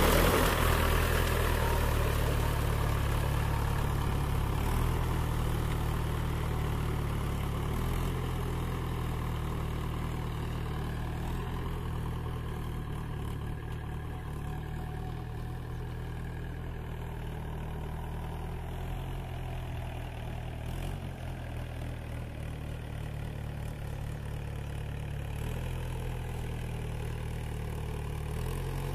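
Diesel tractor engine running steadily as the tractor pulls cage wheels through a flooded paddy field. It grows fainter over the first ten seconds or so as it moves off into the distance, then runs on evenly.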